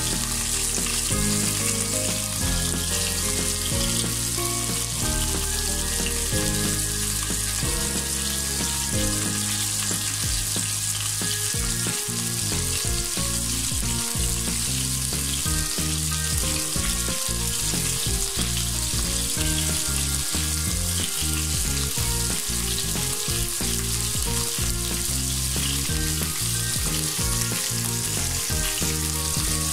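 Chicken and vegetable shashlik skewers sizzling steadily in hot oil in a non-stick wok, the first side frying before they are turned. Background music plays underneath.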